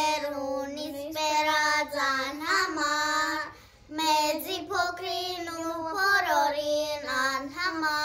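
Two young girls singing a melody together. The phrases are held and sung, with a brief pause for breath just under four seconds in.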